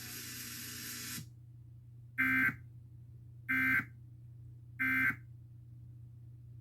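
Emergency Alert System end-of-message data tones: three short, identical buzzing digital bursts about 1.3 seconds apart, signalling that the alert has ended.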